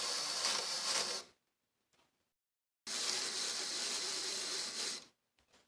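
The ribbon-winding lever of an Underwood Standard typewriter being worked, its ratchet mechanism giving a dry, rapid rasping in two spells, one about a second long and one about two seconds long.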